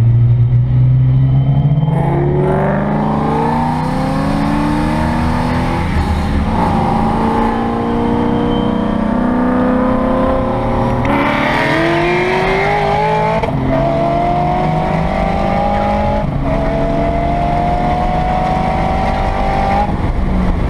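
Twin-turbo Nissan 300ZX engine pulling hard at full throttle, heard from inside the cabin: the note climbs steadily through each gear and drops back at several upshifts, with a brief rush of hiss partway through.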